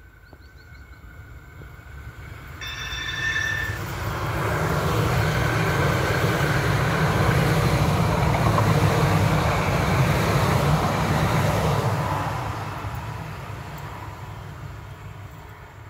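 Frankfurt U-Bahn light-rail train on line U2 passing close by: the rumble of wheels on track builds up, stays loud for several seconds as the cars go past, then fades as the train moves away. A brief high tone sounds about three seconds in.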